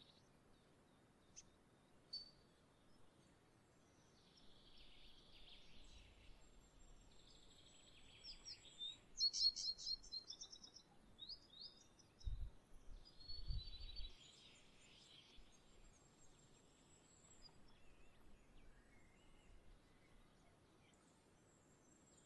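Small songbirds chirping and twittering in short runs, with a thin high whistle now and then. Two soft low thumps come about halfway through.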